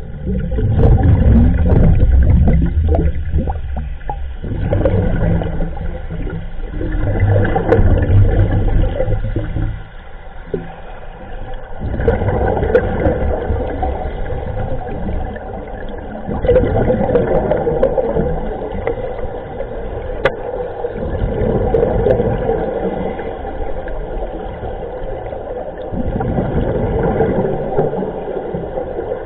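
Scuba regulator exhaust bubbles gurgling and rumbling underwater, in surges that come and go every few seconds with the diver's breathing.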